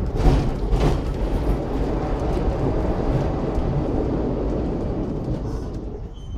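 Vintage electric tram (Sydney tram C 29, built 1898) running along the track, heard from inside the car: a steady rumble of wheels and running gear, with a couple of knocks about a second in, quietening toward the end.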